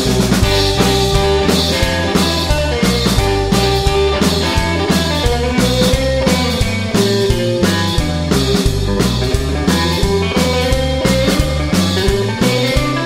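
Instrumental break of an upbeat 1950s-style rock and roll song: guitar over a bass line that steps from note to note and a drum kit keeping a steady beat.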